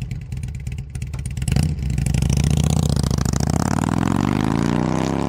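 Motorcycle engine running with a rapid pulsing beat, getting louder about a second and a half in, then revving with a slowly rising pitch through the second half.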